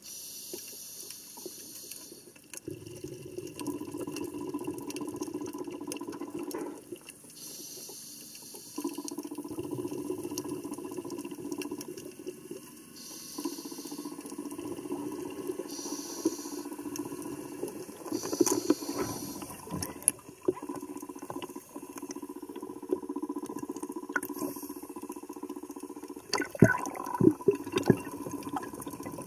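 Muffled underwater water noise with several short bursts of bubbling hiss, and a few sharp knocks near the end.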